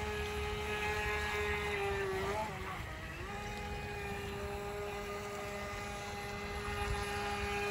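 Electric motor of a battery-powered RC speed boat whining steadily at full throttle. About two and a half seconds in, the whine wavers and drops away for under a second, then comes back at the same pitch.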